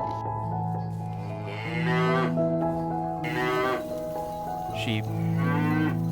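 Goat bleating twice, each a wavering, quavering call, over steady background music.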